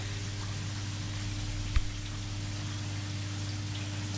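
Koi tank water splashing and bubbling from the filter's waterfall outflow and air stones in the fry net, over a steady low hum. A single brief knock about two seconds in.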